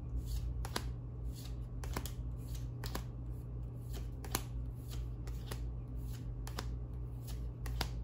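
Paper trading cards from a freshly opened Dragon Ball Super booster pack being slid off a stack one at a time. Each card gives a short, sharp card-on-card slide, about two or three a second.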